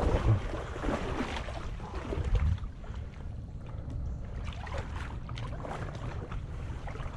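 Footsteps wading through swamp water: irregular sloshing and splashing, louder in the first three seconds and softer after, over a steady low rumble on the microphone.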